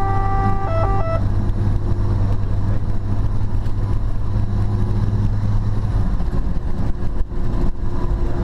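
Fire truck's diesel engine and road noise heard from inside the cab while driving, a steady low drone whose deepest note drops away about six seconds in. A stepped electronic tone sequence cuts off a little over a second in.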